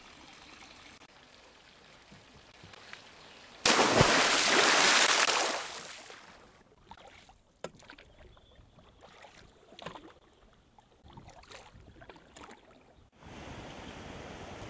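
Water sounds from a canoe paddled on a lake. A loud splashing rush starts suddenly about four seconds in and fades over two seconds, followed by scattered small splashes and drips from the paddle. Near the end a steady rush of flowing stream water comes in suddenly.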